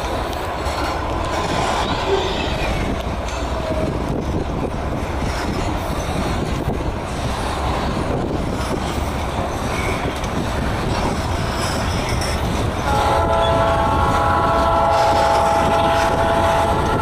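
Freight train's hopper cars rolling past on the rails with a steady rumble of wheels. About thirteen seconds in, a locomotive horn sounds one long chord of several notes for about four seconds, ending near the end.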